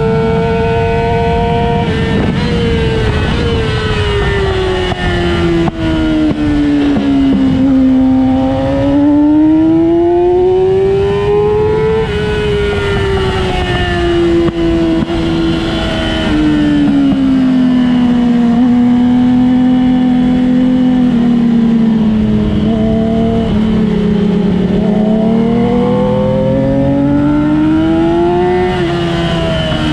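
Onboard sound of a vehicle's engine lapping a race circuit, its pitch sliding down slowly through stretches of slowing, climbing under acceleration, and dropping suddenly at upshifts about twelve seconds in and near the end. Wind rushes under it.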